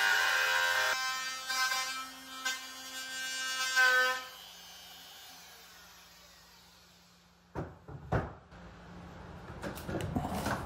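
Palm router with a pattern bit running and cutting wood, its steady whine swelling about four seconds in, then falling in pitch as the motor winds down. A few clicks and knocks follow near the end.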